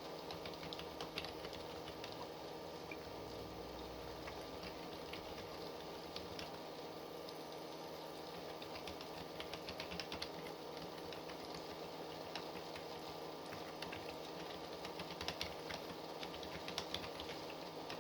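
Typing on a computer keyboard: irregular bursts of keystrokes with short pauses between them, over a steady background hum.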